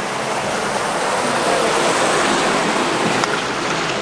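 Mountain runoff swollen by heavy rain rushing down a drainage ditch and splashing into a concrete drain box: a steady, loud gush of water.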